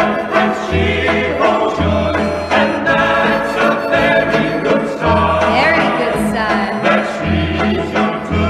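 Vintage popular song playing, with choir-like singing over an orchestral accompaniment and a regular bass line.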